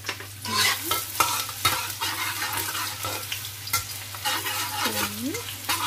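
Sliced shallots, garlic and ginger sizzling in hot oil in a wok, a metal spatula stirring them with repeated clicks and scrapes against the pan.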